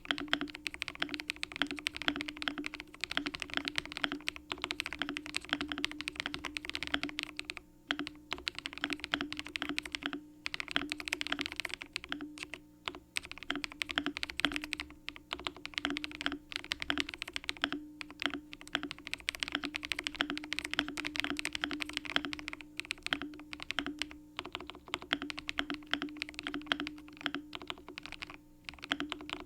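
Fast, continuous typing on a Redragon Flekact Pro (K708) gasket-mounted mechanical keyboard with Leopard L linear switches, broken by a few brief pauses.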